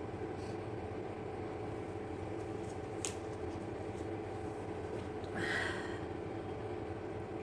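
Steady mechanical hum, with a single sharp click about three seconds in and a short breathy sound a little after five seconds.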